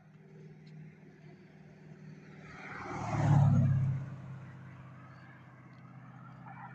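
A car driving past close by, its engine and tyre noise swelling to a peak about three seconds in and then fading away.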